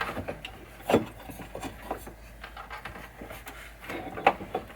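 Hands handling parts and wiring inside a pinball machine cabinet: scattered light knocks and clicks with rubbing, a sharper knock about a second in and another near the end.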